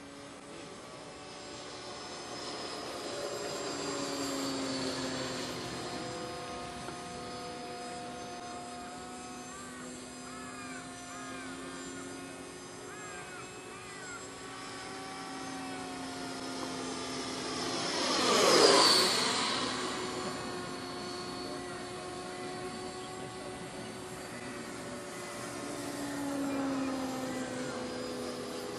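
90 mm electric ducted fan of a Black Horse Proctor RC jet, run on a six-cell battery, whining steadily as the model flies around. About two-thirds of the way through it makes a loud fast pass, its pitch dropping as it goes by, and it swells again near the end.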